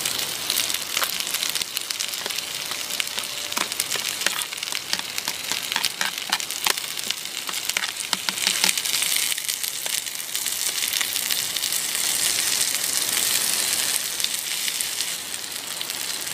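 Food sizzling in a pan on a portable gas stove: a steady hiss, with scattered clicks and scrapes in the first half as a knife pushes chopped corn off a plastic lid into the pan.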